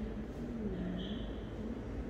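Faint, indistinct voices over a steady low background rumble, with a brief faint high tone about halfway through.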